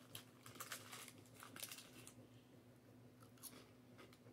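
Faint crinkling and crackling of a crisp packet being handled, a few scattered crackles at a time, over a low steady hum.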